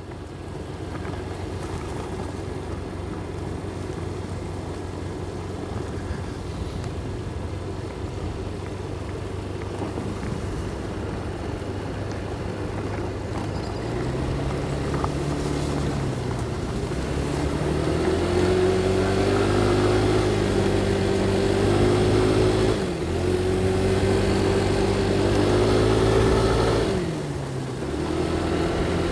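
Motorcycle engine heard through a helmet-mounted mic while riding, running steadily at first, then pulling harder with a rising note from about halfway. The note drops back sharply twice near the end, as with gear changes.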